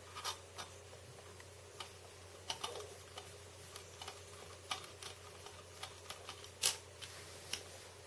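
Small screwdriver driving screws through a metal adapter plate into a 2.5-inch SSD: scattered light clicks and scrapes of metal on metal. The sharpest click comes about two-thirds of the way in.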